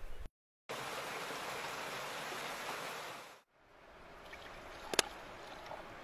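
Water running in a steady rush that fades out about three and a half seconds in, followed by a quieter rush of water with a single sharp click about five seconds in.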